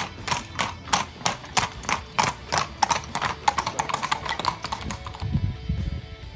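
Hooves of a pair of carriage horses clip-clopping on a brick street, about three strikes a second, fading as the carriage passes. Guitar music comes in near the end.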